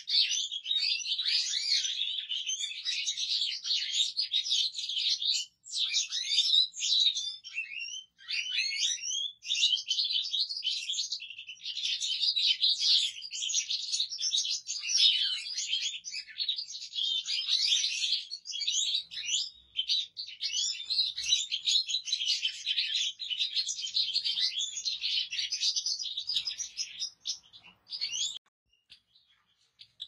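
European goldfinch singing: a fast, unbroken stream of high twittering and trills, with brief pauses about five and eight seconds in, stopping a couple of seconds before the end.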